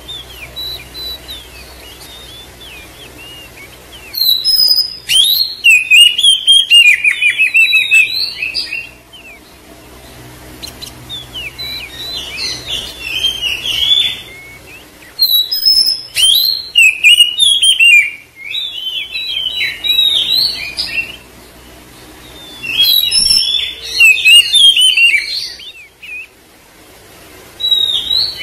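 Oriental magpie-robin (kacer) singing in bouts of fast, varied whistled and chattering phrases, each lasting a few seconds, with short pauses between. It is a lure song meant to provoke a silent or sulking kacer into singing.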